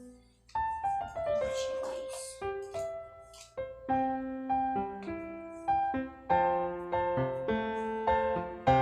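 Background piano music: a melody of separate notes, each struck and then fading.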